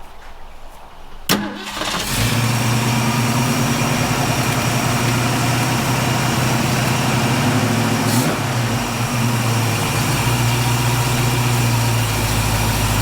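1965 Ford Mustang engine started: a sharp click about a second in, then it catches within a second and settles into a steady idle, with a brief blip near eight seconds. It sounds good.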